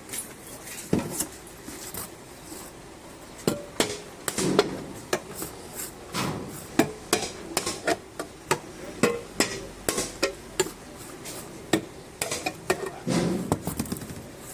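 Tools and metal parts knocking and clanking irregularly, with many sharp strikes, some in quick runs.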